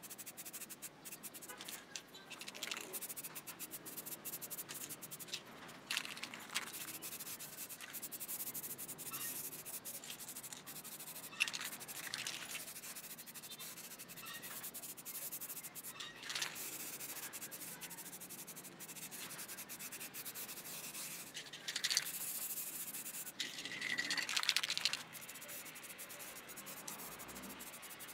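Aerosol spray paint can hissing in repeated bursts of a second or two, spraying black paint onto small bicycle parts.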